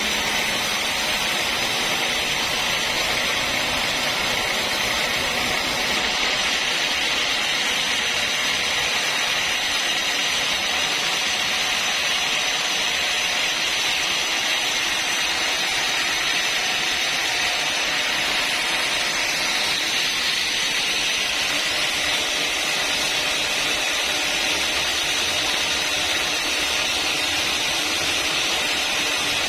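Sawmill saw running steadily through a long cut in a teak log, an even, unbroken mechanical noise.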